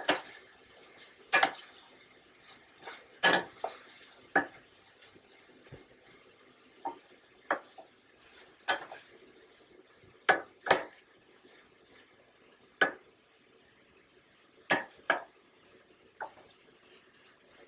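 Wooden spoon stirring sliced vegetables in a stainless steel sauté pan, knocking against the pan in a series of irregular sharp clacks.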